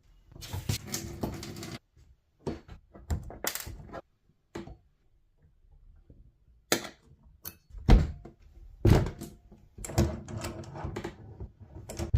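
Metal clinks, clicks and knocks of tools and brass tap parts being handled while a kitchen mixer tap is taken apart, in short separate bursts. The loudest knocks come about two thirds of the way through.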